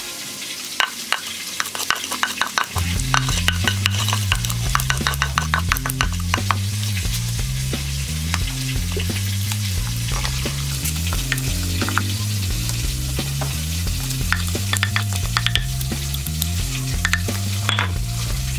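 Wooden pestle pounding and mashing chillies and garlic in a wooden mortar: rapid wet knocks and squelching, densest in the first few seconds, then sparser strokes.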